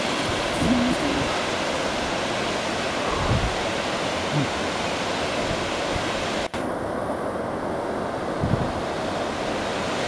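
Water rushing steadily over a series of small rock cascades and a low ledge into a shallow river pool, with a brief dropout about two-thirds of the way through.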